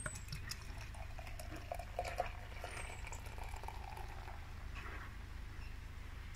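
Beer poured from a glass bottle into a stemmed tulip glass, the stream splashing and fizzing with many fine crackles as a head of foam rises.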